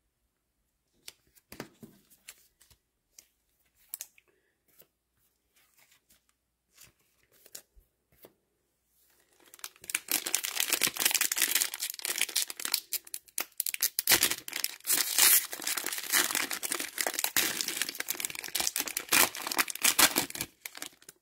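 Plastic wrapper of a football trading-card fat pack being torn open and crinkled: a few scattered light taps, then from about halfway a loud, continuous tearing and crinkling.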